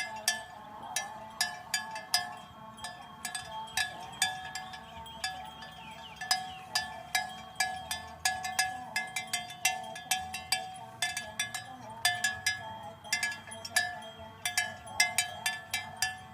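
Bells on cattle clanking irregularly, several strikes a second, each with a short metallic ring.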